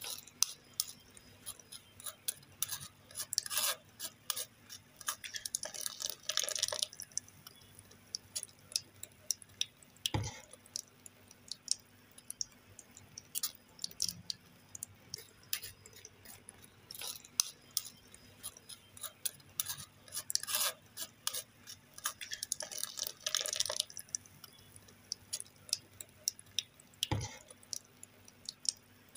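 Metal spoon scraping and pressing wet blended fruit pulp against a stainless-steel mesh strainer: runs of quick small scrapes and clicks, with two sharper knocks of the spoon on the strainer.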